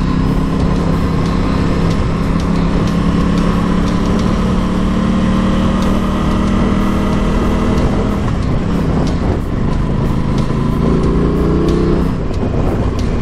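Aprilia Tuono 660's parallel-twin engine running steadily as the bike rides on at moderate speed; near the end its note climbs.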